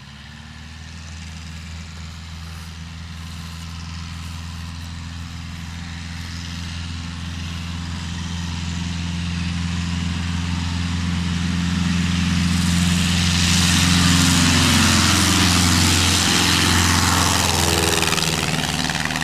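Engine and propeller of a homebuilt wood-and-fabric biplane at takeoff power on its grass takeoff roll, a steady drone growing louder as the plane comes closer. Near the end it passes close at lift-off and its pitch drops.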